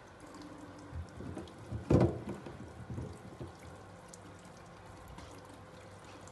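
Tap water running and splashing over potatoes as they are rubbed clean by hand in a plastic colander in a steel sink, with a few soft splashes and knocks, the loudest about two seconds in, then only a faint trickle.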